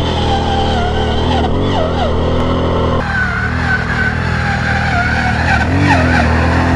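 Linhai ATV engine running hard under load on a steep hill climb, its pitch wavering up and down. The sound changes abruptly about three seconds in.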